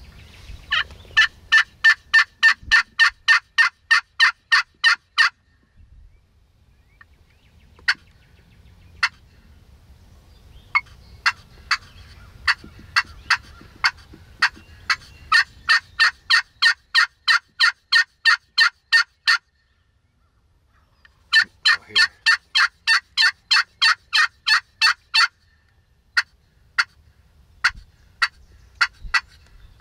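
Friction turkey call played with a wooden striker, running long series of evenly spaced hen yelps at about four a second. There are three runs, with a few single notes between them and scattered notes near the end.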